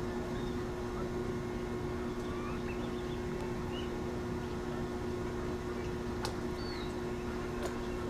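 Steady low mechanical rumble with a constant two-note hum, with a few faint, short, high bird chirps and two light clicks near the end.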